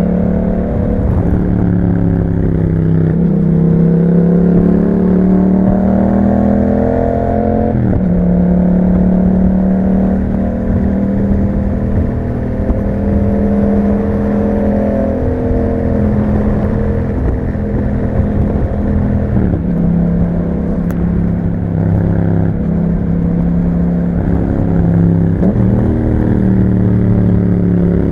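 2021 Yamaha MT-07's 689 cc crossplane parallel-twin engine through an Akrapovic exhaust, ridden on the road. The revs climb and drop back sharply at a few gear changes, and it holds steady revs for a long stretch in the middle.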